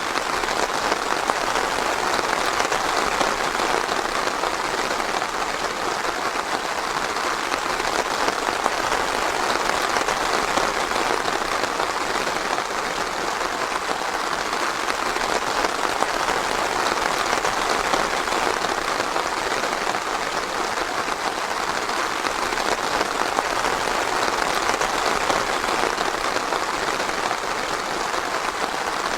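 Steady, even rain pattering on foliage and ground: a dense, continuous patter with no thunder.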